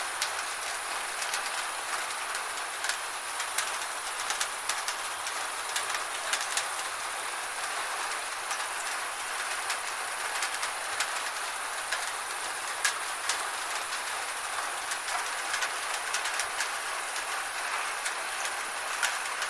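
Steady rain on a tin roof, heard from inside: a constant hiss with many sharp, irregular taps of drops striking the metal.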